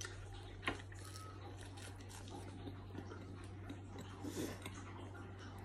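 A person chewing a bite of a soft bread sandwich with lettuce, quietly, with a short click about a second in and a brief low murmur about four seconds in.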